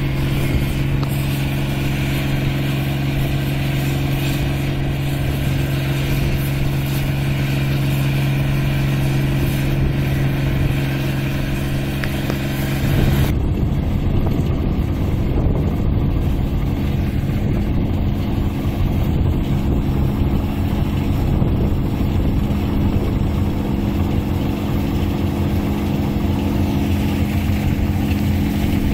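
Engine of an 8060 combine harvester running steadily under load as it harvests rice, a continuous drone with a steady low hum. About halfway through the sound changes abruptly, turning rougher and deeper with less high-pitched noise.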